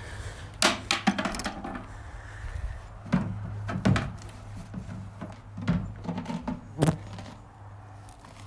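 Scattered knocks and thuds as a pony takes a peppermint treat from its feed bucket, the loudest about half a second in, about 4 s in and near the end, over a steady low hum.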